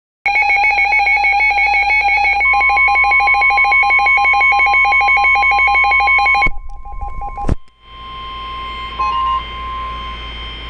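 Emergency alert tones from a weather radio broadcast. A rapidly pulsing, warbling electronic alarm sounds for about six seconds. A couple of seconds in, a steady high single tone joins it. The warble cuts off abruptly, a sharp click follows, and the steady tone carries on over radio hiss until near the end.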